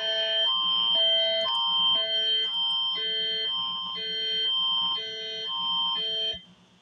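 Canadian Alerting Attention Signal of an Alert Ready emergency broadcast test: electronic chime-like tones alternating about twice a second over a steady high tone, cutting off about six seconds in.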